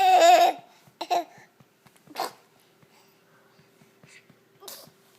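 Baby's laughing squeal, loud and high-pitched, lasting about half a second at the start, then a shorter one about a second in, followed by a few quieter breathy sounds.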